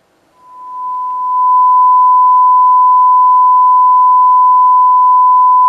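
A steady 1 kHz sine-wave test tone from a test CD, played through a pair of speakers by a Denon DRA-F109DAB hi-fi receiver. It fades in as the volume knob is turned up, reaches full level about a second and a half in and then holds steady, showing the amplifier working fine through both speakers.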